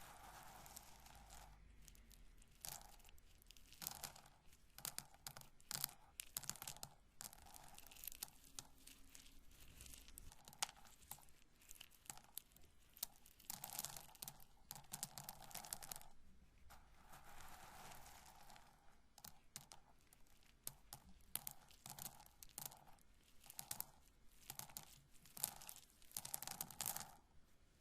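Roasted corn kernels handled and rubbed together by hand: a quiet, continuous run of dry crackles and small sharp clicks.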